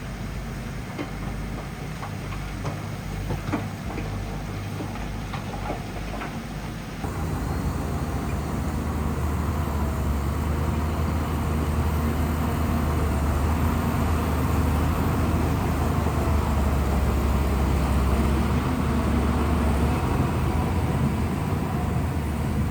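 Heavy bulldozer's diesel engine running, with sharp metallic clanks during the first seven seconds or so. About seven seconds in, the sound changes abruptly to a louder, steady low engine drone.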